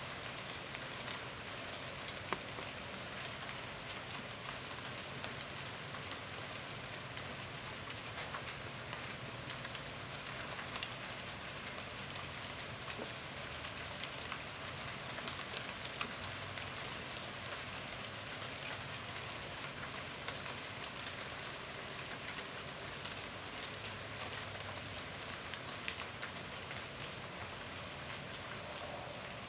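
Steady rain falling, an even hiss sprinkled with many small ticks of individual drops.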